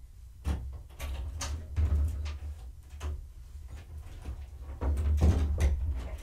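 A run of knocks, rustles and low thumps close to the microphone, loudest about two seconds in and again around five seconds in.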